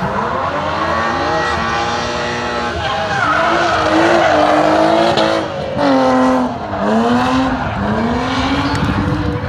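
Drift car sliding sideways through a corner: the engine revs high, its pitch rising and falling several times with a brief dip about five and a half seconds in, over tyre squeal.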